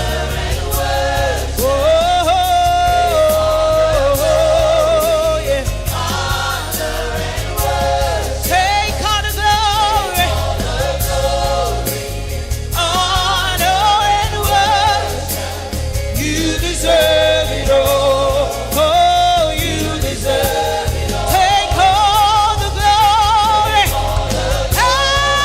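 Live gospel worship music: voices singing sustained, wavering lines with vibrato over a band with a steady bass.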